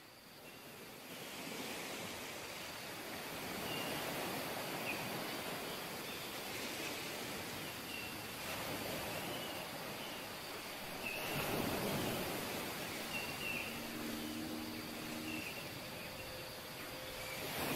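Steady rushing of a flowing river, swelling briefly about two-thirds of the way through, with short high bird chirps repeating roughly once a second.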